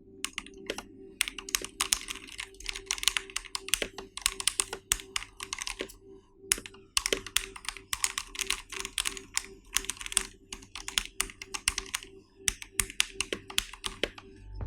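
Fast typing on a custom 65% hot-swap mechanical keyboard fitted with lubed Gateron White linear switches: rapid runs of key clicks, with short pauses about six seconds in and again near the end.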